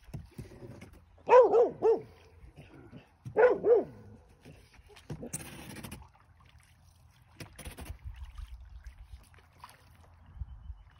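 A dog barking: three quick barks, then two more about two seconds later. A short rush of noise follows about five seconds in, and wind rumbles on the microphone.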